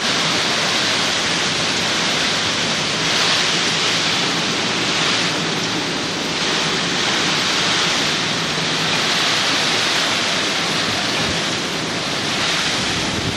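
Typhoon wind and heavy rain: a loud, steady rush that swells and eases in gusts every few seconds.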